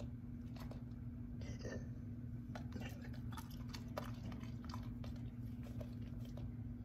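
Golden retriever chewing a piece of cooked chicken breast: soft, irregular wet mouth clicks and smacks, over a steady low hum.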